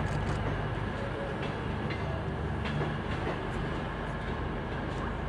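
CrossCountry Voyager diesel multiple unit moving through the station throat, its underfloor diesel engines giving a steady low hum, with a few sharp clicks of the wheels running over the pointwork.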